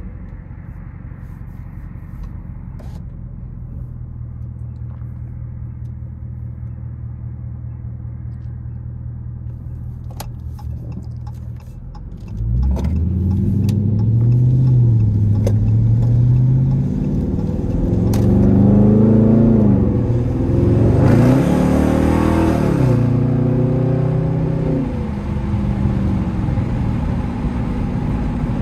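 Dodge Charger SRT's V8 heard from inside the cabin: a steady low drone at first, then about twelve seconds in it opens up hard under acceleration, its pitch climbing and dropping several times before easing back to a steady cruise.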